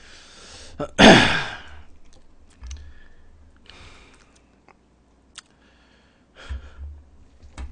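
A man's heavy, breathy sigh, falling in pitch, about a second in, amid the strain of eating a mound of congealed, stiffened Chapagetti noodles. Around it, a few light clicks and rustles of metal tongs working the noodles.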